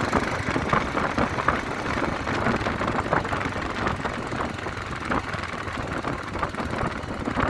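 Royal Enfield Himalayan's single-cylinder engine idling steadily, freshly serviced.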